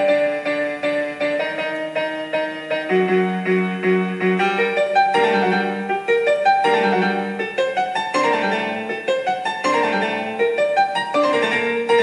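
Background piano music, a continuous run of notes and chords.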